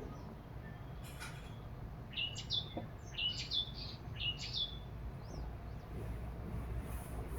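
A bird chirping a quick run of about six short notes, each jumping up in pitch and then dropping, over a steady low rumble.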